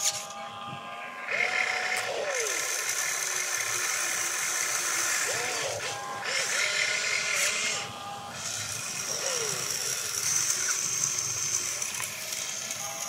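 Electric motors and gearboxes of an RC excavator whining and whirring as the arm and bucket move and the upper body swings, stopping briefly twice between moves.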